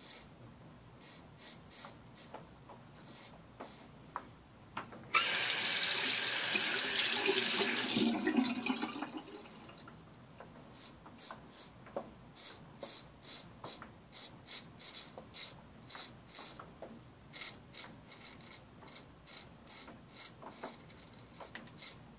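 Straight razor scraping through lathered beard stubble in a series of short strokes. About five seconds in, a water tap comes on suddenly and runs for about three seconds, the loudest sound, before fading away.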